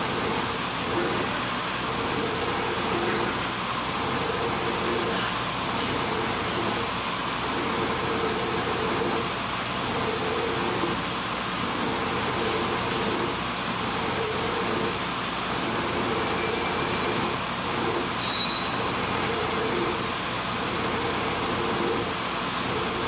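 Vertical milling machine running, its end mill cutting a metal traverse shaft while the feed is worked by hand: a steady machine noise with a cutting note that swells and fades about every one and a half seconds.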